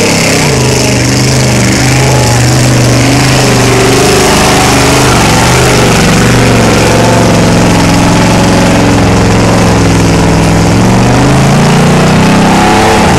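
Full-size Ford Bronco's engine running loud at high revs under load as it churns through deep mud, its pitch dipping and climbing again about ten to eleven seconds in.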